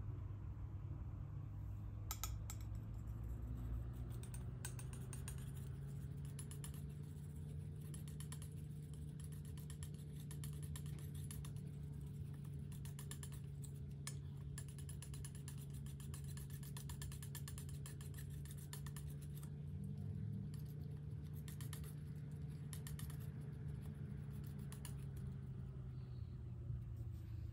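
Metal palette knife scraping and tapping through thick paint on a hard surface as two colours are mixed and spread, a quick run of small clicks and scrapes. A steady low hum underneath.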